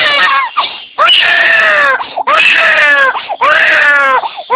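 Baby girl crying hard in repeated loud wails about a second long, each arching up and falling in pitch, with quick gasps between them. She is crying in fright after being startled by a loud sneeze.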